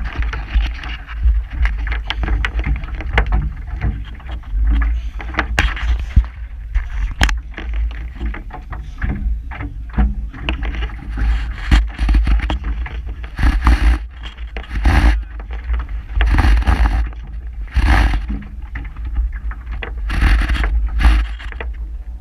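A rope being handled on the bow of a rowing shell, close to the microphone: repeated scrapes, rubs and clicks of the line and hands against the hull, with longer rubbing sounds in the second half, over a steady low rumble.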